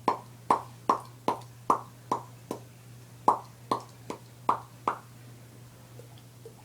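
A string of about a dozen mouth pops made as a silly noise for a baby, evenly paced at roughly two and a half a second, stopping about five seconds in.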